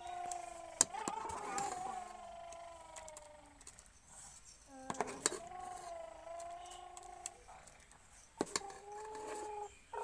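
Metal spoon clinking and scraping against a steel cooking pot while thick mango murabba is scooped, with sharp clicks about a second in, around the middle and near the end. Three long, drawn-out calls sound in the background.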